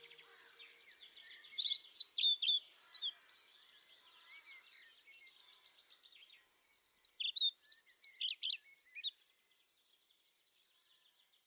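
Birdsong: two bouts of quick, sharp high chirps and whistled phrases, one starting about a second in and another around seven seconds in, over a faint high rapid trill.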